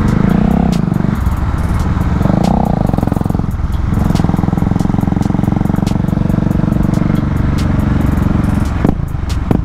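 KTM Duke motorcycle engine revving hard under acceleration, rising twice in the first few seconds, easing briefly and then pulling steadily, as the rider pops a wheelie.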